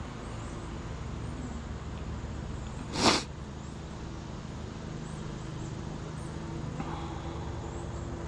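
Honeybees humming steadily around an open hive. About three seconds in there is a single short, loud rush of noise.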